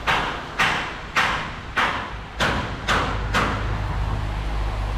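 Evenly spaced sharp knocks, about three every two seconds, with a short ring after each, stopping about three and a half seconds in; a low steady rumble follows.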